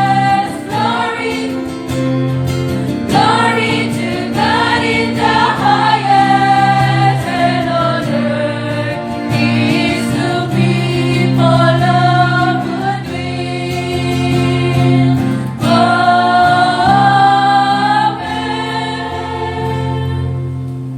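Church choir singing a hymn over steady held low accompaniment notes. Near the end the voices fall away while the low notes carry on.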